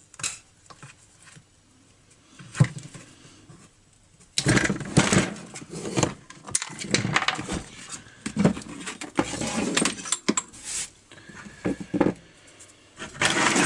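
Clicks, knocks and rattles of small metal and plastic parts as a petrol grass trimmer's carburetor is handled and taken off the engine. The sounds are sparse at first and much busier from about four seconds in.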